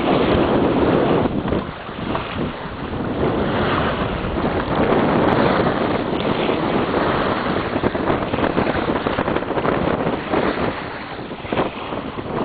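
Wind buffeting the microphone aboard a sailboat under way, with water rushing along the hull; the noise rises and falls in gusts.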